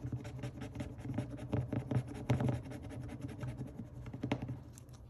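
A coin scratching off the coating on a paper scratch-off card: rapid, repeated short scraping strokes that thin out near the end.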